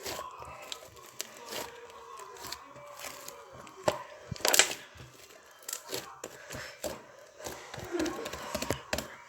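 Slime being squished, stretched and folded by hand, making irregular sticky clicks and pops, with one louder pop about four and a half seconds in.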